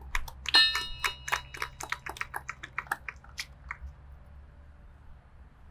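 A small bell rung after the name of a deceased member: a quick, irregular run of sharp strikes with a brief ringing tone, dying away over about four seconds.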